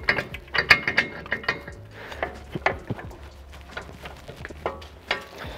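Metal suspension parts clanking and knocking as a broken CV axle and steering knuckle are worked loose by hand, with a quick run of knocks at first and scattered clanks after.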